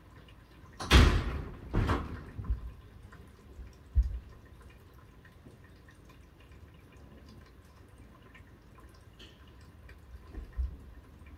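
Light rain falling, with faint scattered drips and patters. About a second in come two short, loud rushes of noise. A few dull low thumps follow, one about four seconds in and one near the end.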